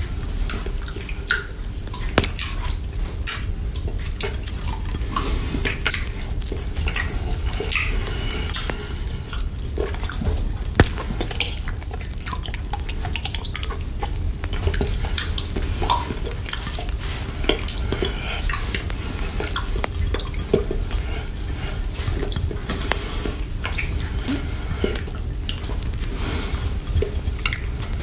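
Close-miked wet mouth sounds of a chocolate lollipop dipped in whipped cream being licked and sucked: irregular smacks, clicks and slurps.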